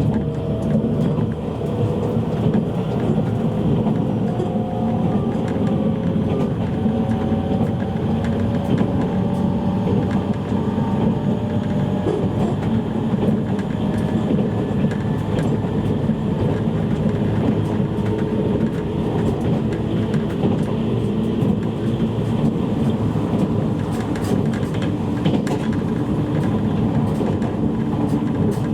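Interior sound of a JR East E653 series electric train's motor car running on the line: a steady rumble of wheels on rail, with the motors' whine rising slowly in pitch over the first dozen seconds as the train gathers speed, then holding steady.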